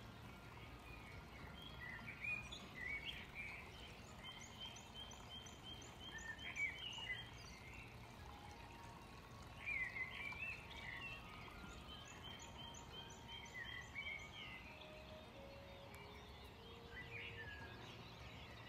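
Songbirds singing faintly: short warbling phrases and runs of one high note repeated quickly, over a steady low outdoor hum.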